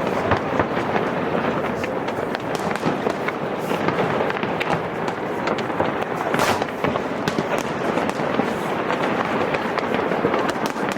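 Fireworks display going off without pause: dense crackling and popping with many sharp bangs, one especially sharp crack about six and a half seconds in.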